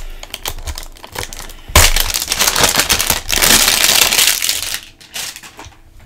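Clear plastic shrink wrap being picked at and torn off a trading card hanger box: light crinkles at first, then about three seconds of loud, dense crinkling as the wrap is pulled away, tailing off to a few faint crinkles.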